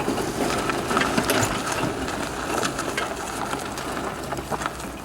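Steady crunching, with many small clicks and rattles, of wheels rolling over rough ground as a load is pushed by hand.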